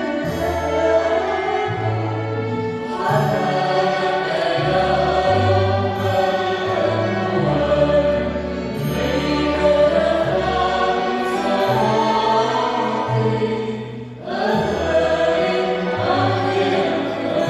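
Live music: women's voices singing a slow melody together over a small acoustic ensemble, with a double bass holding low notes that change about once a second. The music briefly drops away about fourteen seconds in, then resumes.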